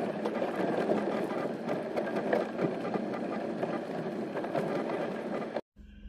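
Subaru Outback creeping down a steep dirt track: a steady rumble of tyres on the rough surface with scattered small crackles, cutting off suddenly near the end.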